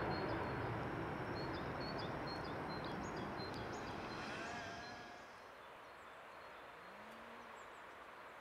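Jet engine noise of a departing Boeing 757-300 climbing away, fading steadily over about five seconds to a faint background hiss. Small birds chirp briefly through the first half.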